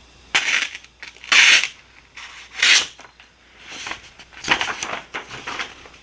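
Multitool knife blade slicing through a sheet of paper in a sharpness test: three quick, crisp cuts about a second apart, then softer paper rustling as the sheet is handled.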